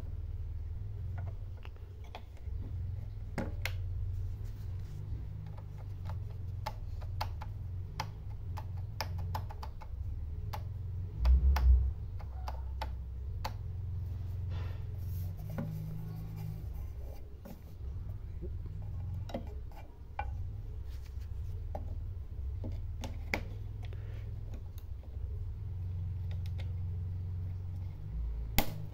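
Numark PT01 Scratch portable turntable giving a steady low hum, with scattered light clicks and taps as it is handled. There is one loud low thump about eleven seconds in.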